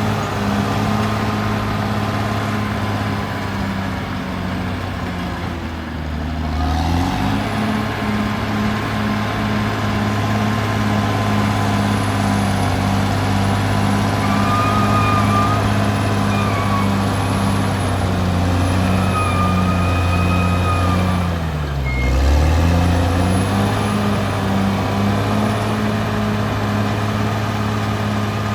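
Caterpillar D6R XL crawler bulldozer's diesel engine running under load, its pitch sagging and picking back up twice, about six seconds in and again near 22 seconds. A few brief high squeals come through midway.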